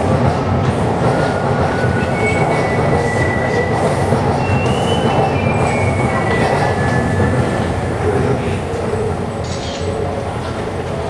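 JR Chuo Line E233-series electric train rolling round a sharp curve: a steady rumble of wheels on rail, with wheel squeal as several thin high tones that step up and down in pitch through the middle.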